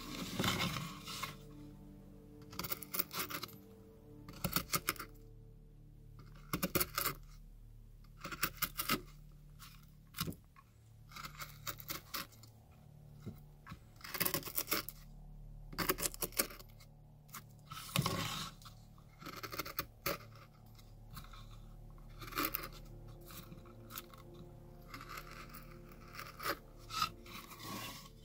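Carving gouge cutting into cottonwood bark: a series of short, crisp scraping cuts every second or two, with chips breaking away.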